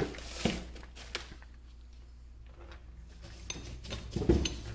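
Light clicks and knocks of a pair of 18650 lithium-ion cells being handled against a plastic lamp housing, a few scattered taps with a small cluster near the end, over a low steady hum.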